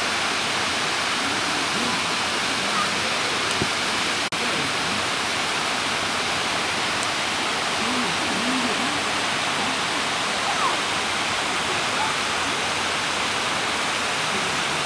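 Waterfall rushing steadily, with faint distant voices.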